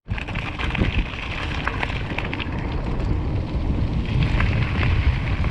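Wind buffeting the camera microphone and mountain bike tyres rolling over a gravel forest road with scattered rattles and clicks, growing slowly louder as the bike gathers speed downhill.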